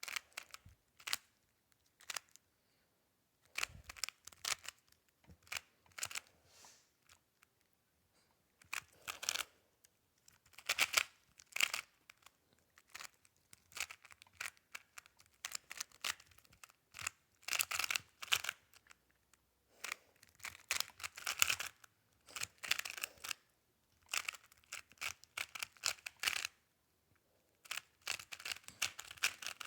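A speedcube being turned fast by hand: bursts of rapid plastic clicking and clacking, broken by short pauses.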